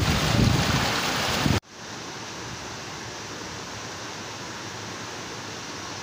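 Floodwater rushing, with wind buffeting the microphone. About a second and a half in it cuts off sharply to a quieter, steady rushing hiss of floodwater.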